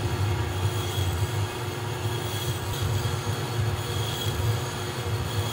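Metal lathe running, turning a heavy steel shaft while a long boring bar cuts its bearing journal: a steady low rumble with a faint high squeal that comes back about every two seconds.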